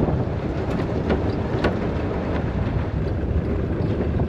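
Pickup truck driving along a rough dirt road, heard from its open bed: a steady rumble of engine and tyres on gravel with wind buffeting the microphone, and a few short knocks as it goes over bumps.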